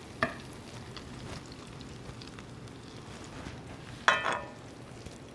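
A metal spoon clinking against a skillet and serving bowl as caramelized venison is dished up. There is a light click just after the start and a sharper clink with a short ring about four seconds in, over a faint steady hiss.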